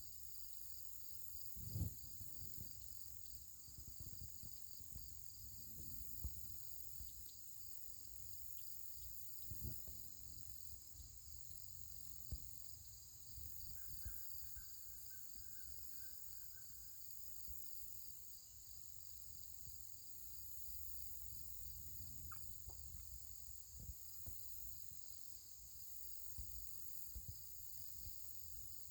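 Steady high-pitched chorus of insects trilling, one part pulsing rapidly, over a low outdoor rumble with a few soft knocks, the sharpest about two seconds in.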